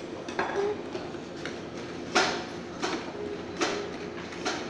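Metal spatula edges tapping and scraping on a rolled-ice-cream cold plate as a thin sheet of ice cream is scored into strips, sharp metallic clicks about every two-thirds of a second, the loudest about two seconds in.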